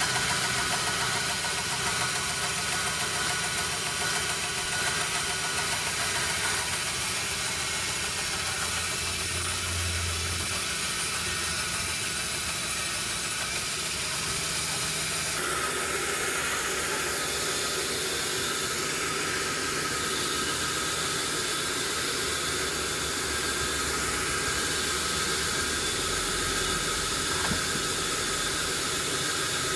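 Sawmill machinery running steadily. About halfway through the sound changes and takes on a brighter, higher band.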